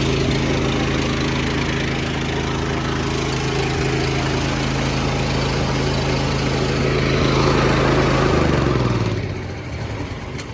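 An engine running steadily, then winding down and shutting off about nine seconds in.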